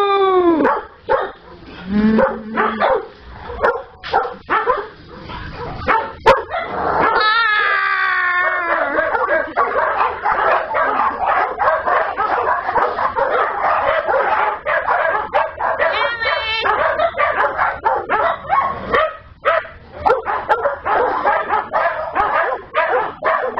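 Many small dogs barking and yipping over one another. The barks thicken into an almost continuous chorus from about ten seconds in, with a long howl about seven seconds in.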